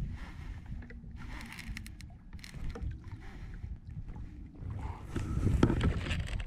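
Water sloshing against a fishing kayak, with knocks and handling noise on the hull. It gets louder near the end.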